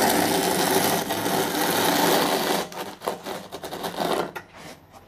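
Notched trowel scraping through wet cement-based tile adhesive on a wall, combing it into grooves: a continuous rasp, then several shorter separate strokes from about two and a half seconds in, dying away near the end.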